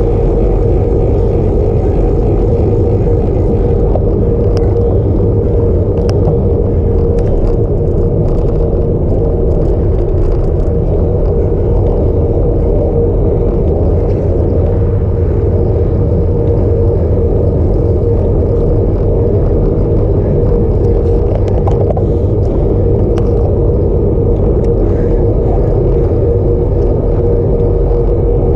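Steady wind rush over the camera microphone mixed with tyre-on-asphalt noise from a road bike rolling at speed, with a constant hum and a few faint ticks.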